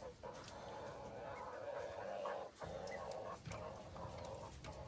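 Chickens clucking and murmuring quietly, with a few faint clicks and knocks.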